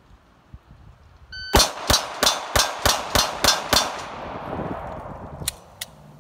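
A shot timer's short electronic beep, then eight rapid 9mm pistol shots from a stock Glock 19, evenly spaced and fired in about two and a half seconds, with echo trailing after. Two short clicks follow near the end.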